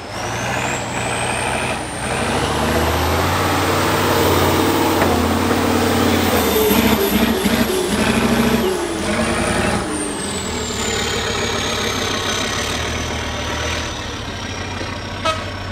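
Tatra 6x6 truck-trial truck's diesel engine working hard under load as it climbs out of a muddy pit, loudest in the middle of the climb. Over it a high whine climbs steeply over the first few seconds and then slowly falls away. A single sharp click comes near the end.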